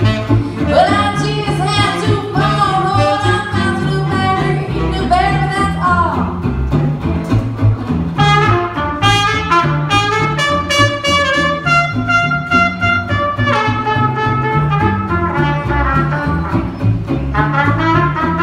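Live small-band jazz: a female vocalist sings the last line of a vocal chorus over walking upright bass and guitar, then, about eight seconds in, switches to trumpet and plays a lead line.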